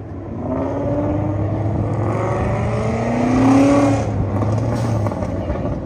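ProCharger-supercharged S550 Ford Mustang accelerating hard: the engine note rises, drops back and rises again, is loudest about three and a half seconds in, then fades as the car moves off.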